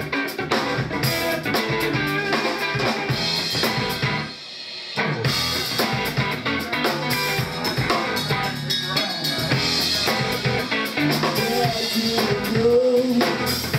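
Live band with drum kit, electric guitar and bass playing an instrumental passage, with a short stop about four seconds in before the full band comes back in.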